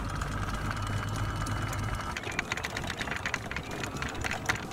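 Anchor windlass hauling in the anchor chain. A steady motor whine runs for about the first two seconds, then gives way to a rapid run of clanks and rattles as the chain links come aboard.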